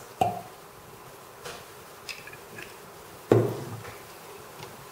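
A bottle of chili sauce squeezed out over a bowl. There are a few soft knocks and clicks, and one louder thump a little over three seconds in.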